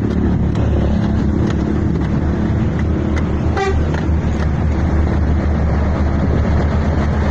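Diesel engine of a Hino cargo truck running steadily as it drives. A brief horn honk comes about halfway through.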